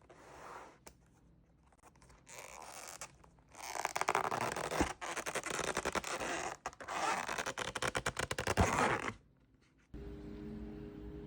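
Scratchy scraping and rustling in several bursts of a second or two, close to the microphone, then a steady low hum starting near the end.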